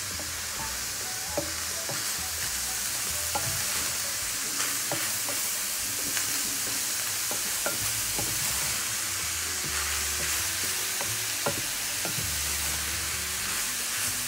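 Ground beef with diced celery and onion sizzling in a nonstick skillet, stirred with a wooden spatula: a steady frying hiss with frequent scrapes and taps of the spatula against the pan.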